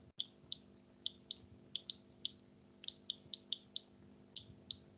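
Light, irregular clicks as digits are handwritten onto a computer screen with an input device, about fifteen of them in a few seconds, over a faint steady hum.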